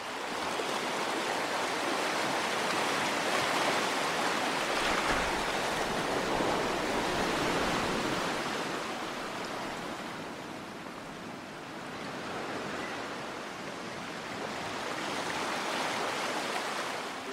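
Sea surf washing over rocks: a steady rush of water that swells, eases around the middle and builds again near the end.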